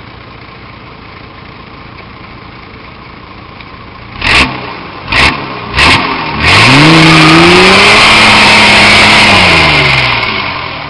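Nissan Patrol Y60's 4.2-litre diesel engine ticking over low under load on a steep bank, then, after three short loud bursts about four to six seconds in, revving hard: the pitch climbs, holds high for about three seconds and falls away near the end.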